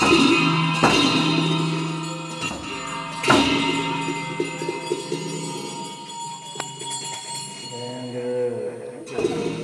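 Tibetan Buddhist ritual music: clashing cymbals and drum strikes with long metallic ringing, loudest at the start, about a second in and about three seconds in, over the monks' low chanting. The percussion fades and the chanting voices carry on near the end.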